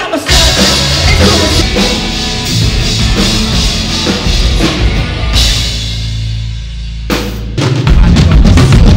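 Loud rock music with a full drum kit and heavy bass. About five seconds in the cymbals and drums drop away under a held low note, then the whole band crashes back in near the end.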